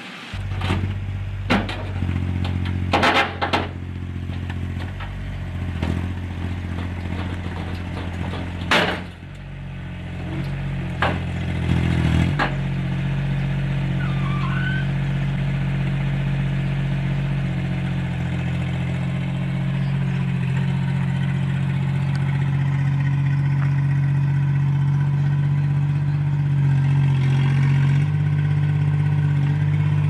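Heavy diesel earthmoving machinery running, with several sharp knocks and clanks in the first twelve seconds. From about twelve seconds in, a JCB 8018 mini excavator's diesel engine runs steadily while the machine works its arm and tracks. Its pitch shifts slightly near the end.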